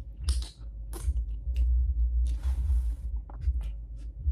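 Close-miked eating sounds: a plastic fork clicking and scraping in a foam takeout container of rice, and chewing, as a series of short sharp clicks with a scratchy stretch about two seconds in, over a low rumble.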